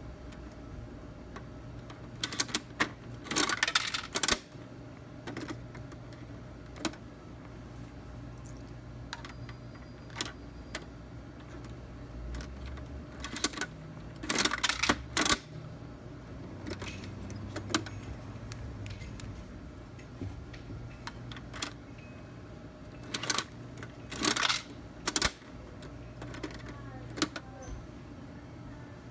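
Coin-operated toy vending machine being worked: three bursts of rapid clicking and rattling, with a few single clicks between them, over a steady low hum.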